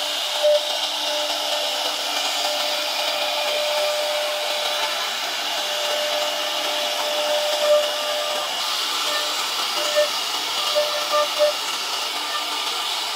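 CNC router spindle running and its cutter routing grooves along a wooden board: a steady whine with chip noise, with a few brief louder tones as the cutter bites, most of them in the second half.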